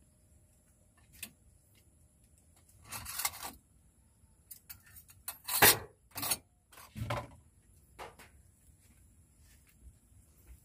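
Kitchenware being handled: a scattering of short knocks and clatters of dishes and a pot, with a rustle about three seconds in and the sharpest knock just before the middle.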